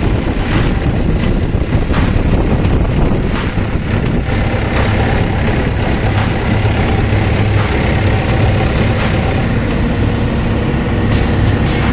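Kobelco SK200-8 crawler excavator's diesel engine running steadily at idle, with a few sharp knocks now and then.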